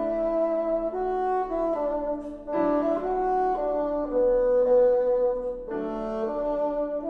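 Bassoon playing a slow melody of long held notes with piano accompaniment; new piano chords come in about two and a half seconds in and again near six seconds.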